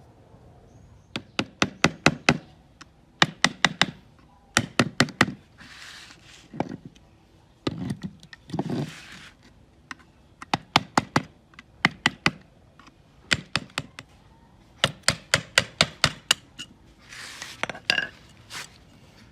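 Repeated knocking in quick bursts of four to six sharp strikes, with a few short hissing scrapes in between.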